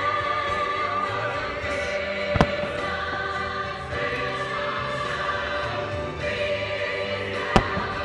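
Choral music playing, with two sharp firework bangs about five seconds apart.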